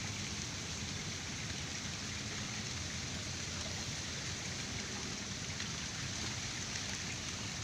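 A steady, even hiss with no distinct events.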